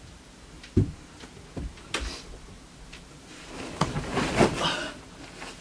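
A few dull thuds, then a longer rustle of bedding a bit after halfway, as a person climbs onto a bed.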